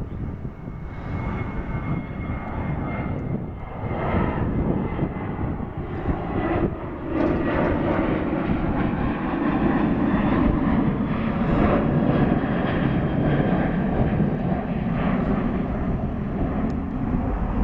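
Jet engines of a Southwest Airlines Boeing 737 climbing out after takeoff: a continuous, steady engine noise that grows louder about seven seconds in.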